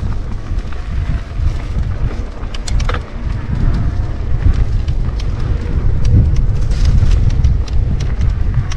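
Wind buffeting the camera microphone while an e-mountain bike is ridden along a trail, with scattered clicks and rattles from the bike and the ground.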